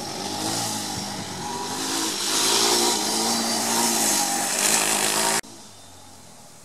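Quad bike engine revving as it is ridden around, its pitch rising and falling, louder in the middle. It cuts off suddenly about five seconds in, leaving faint outdoor background.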